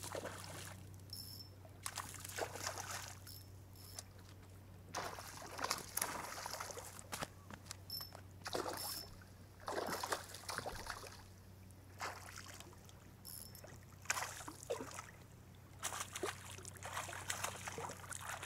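Hooked smallmouth bass splashing and thrashing at the lake surface as it is played on the rod, in irregular bursts of varying strength.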